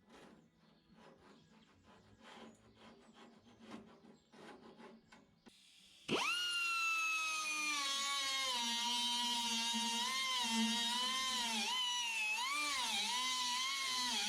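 Faint scattered taps and clicks, then about six seconds in a handheld electric power tool switches on and spins up to a high-pitched whine. Its pitch dips and recovers several times near the end as it is loaded against the work.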